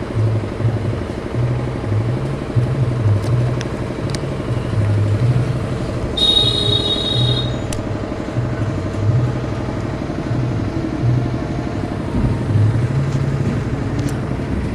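A machine runs steadily with a low, pulsing hum, like an engine running. A brief high-pitched tone sounds about six seconds in.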